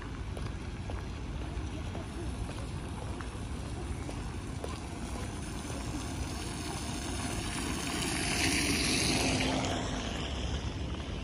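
Wind rumbling on the microphone over steady rain hiss, with a louder wash of hiss about eight seconds in as an electric golf cart's tyres pass over the wet paving.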